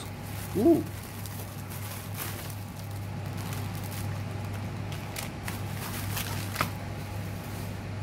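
Bubble-wrap and plastic packaging handled by hand, giving a few faint crinkles and one sharper click late on, over a steady low hum. A short voiced sound comes just under a second in.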